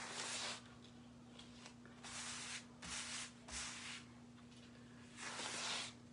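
Hands rubbing a sticky silk-screen craft transfer against a microfiber towel to fuzz it, in five short scrubbing strokes over a steady low hum.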